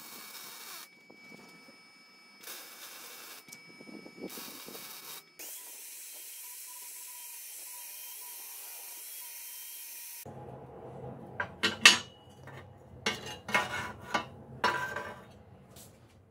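MIG welding in three short bursts of crackling hiss, then an angle grinder running steadily with a constant whine for about five seconds, grinding the weld. After the grinder stops there is a low hum with several sharp metallic knocks and clanks.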